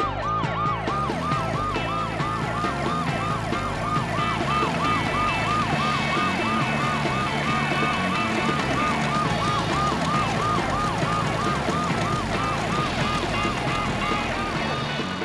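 Ambulance siren in a fast, repeating yelp, about three quick rising-and-falling sweeps a second, over background music.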